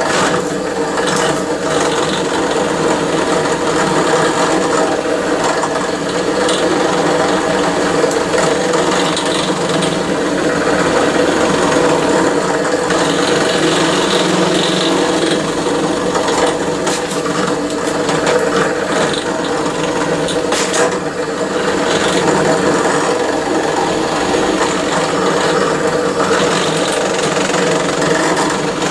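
An electric power tool running steadily while it cuts into a metal window-handle part, machining it deeper. The sound holds at an even level with a steady motor hum under a rough cutting noise.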